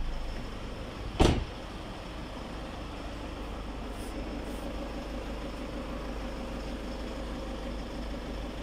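A single loud clunk from the body of a Ford Kuga about a second in, followed by a steady low hum.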